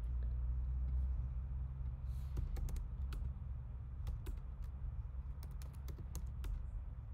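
Typing on a computer keyboard: irregular key clicks in quick runs, starting about two seconds in, over a steady low hum.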